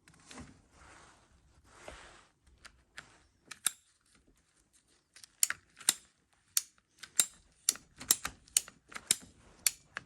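A short piece of conduit being cut: faint scraping at first, then a run of sharp clicks at about two a second through the second half.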